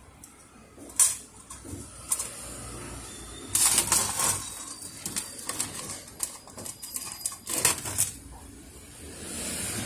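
Handling noise from working on a photocopier fuser unit: a sharp click about a second in, then short bursts of rustling and scraping of plastic and parts, the loudest around four and eight seconds in.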